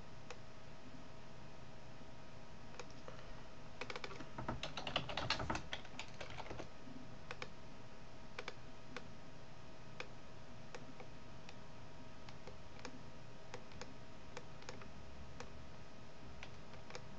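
Computer keyboard typing: a quick run of keystrokes for a couple of seconds, then single clicks every second or so. A steady faint hum runs underneath.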